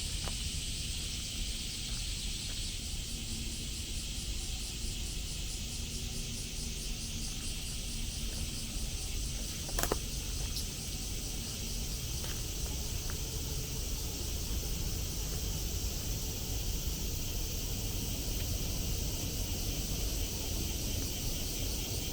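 A dense, steady chorus of many cicadas singing in a shrill, pulsing drone, over a low rumble. A single sharp click comes about ten seconds in.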